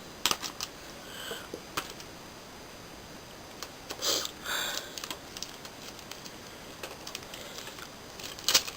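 Mailer packaging being opened and handled by hand: scattered sharp clicks and taps, with a short rustle about four seconds in and a few louder clicks near the end.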